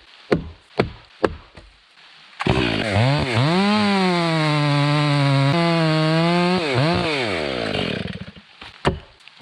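Large chainsaw revved to full throttle about two seconds in. Its pitch dips briefly as it loads, holds steady for about four seconds, then drops and winds down. Before and after the run come sharp knocks, about two a second.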